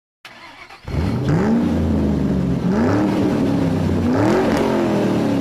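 Car engine revving and accelerating, its pitch climbing and levelling off several times as if shifting up through gears. It starts about a second in.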